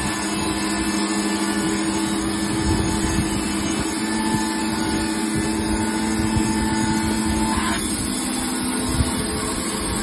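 Wood-Mizer LT20 portable bandsaw mill running steadily, with a steady hum. A higher whine joins partway through and cuts off about three-quarters of the way in.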